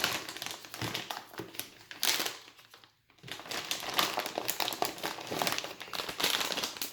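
Packaging crinkling and rustling in hand-handled, irregular crackles as a boxed graphics card is unpacked, with a brief pause about three seconds in.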